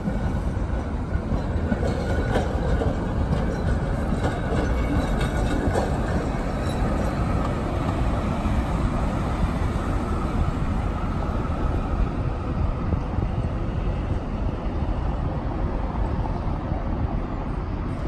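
Articulated city tram rolling along street rails, a steady rumble among car traffic, with light clicking over the first few seconds.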